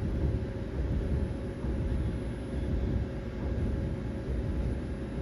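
Steady low rumble and hum of a CNC wheel lathe running while its stylus probe traces the rim profile during digitizing, with a faint constant tone over the rumble.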